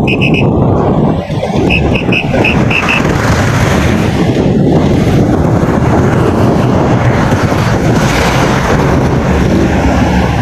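Wind buffeting the microphone of a moving bicycle, with city traffic under it: a loud, steady rush. At the start, and again about two seconds in, comes a run of short high electronic beeps, about five a second.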